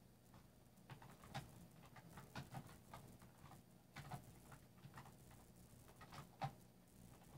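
Faint, irregular taps of fingers typing a message on a phone's touchscreen keyboard, about fifteen to twenty short clicks at an uneven pace over a low hum.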